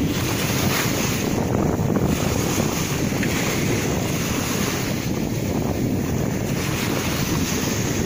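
Steady sea wind buffeting the microphone, mixed with small waves washing at the shore.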